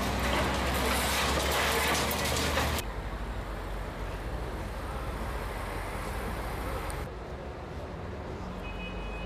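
Heavy excavator diesel engines running, with a loud rush of noise for the first three seconds that drops abruptly to a steadier engine drone. A few short high reversing-alarm beeps come near the end.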